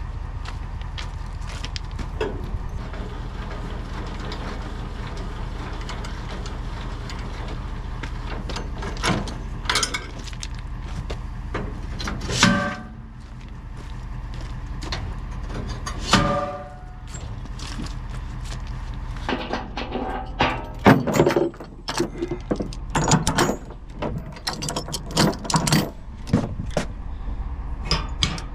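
A vehicle engine running with a steady low rumble. From about two-thirds of the way in comes a busy run of sharp knocks and clanks.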